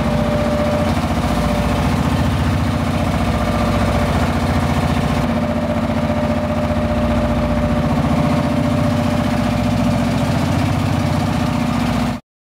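Fishing boat's engine running steadily under way, a loud even drone with a fast regular pulse. It cuts off abruptly shortly before the end.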